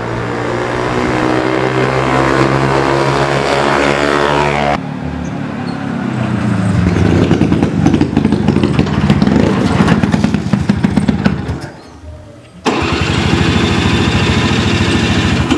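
Vespa PX two-stroke single-cylinder engine, fitted in a Vespa Tank scooter, running and being revved. It comes in three spliced sections with abrupt cuts about five and thirteen seconds in; the middle section is louder and faster-firing, then drops off briefly before the last cut.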